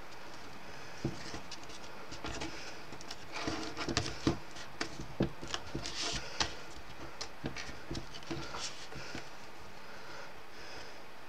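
Die-cut card stock being folded and pressed together by hand on a wooden desk: scattered light taps, crinkles and rustles, busiest in the middle and quieter toward the end.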